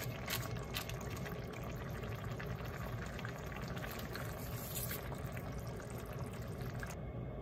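Daikon and fried tofu simmering in seasoned broth in a frying pan under a kitchen-paper drop lid: steady bubbling with small crackles. The wet paper lid rustles as it is pressed down and then peeled back off the pan, and the high hiss drops away near the end.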